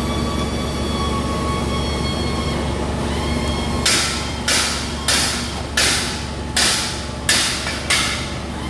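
Okuma Howa milling machine with its hydraulic system running, a steady hum with a few fixed tones. About four seconds in, seven short hissing bursts come at an even pace of about one every 0.7 s.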